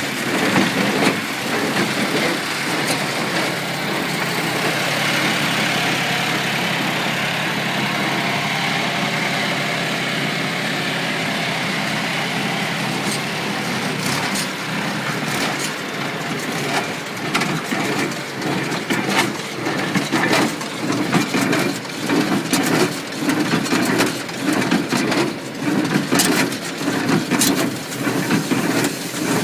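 International Harvester 47 hay baler running with bales being fed back through it. The machine runs steadily at first, then from about halfway in a regular knock with clatter comes about once a second.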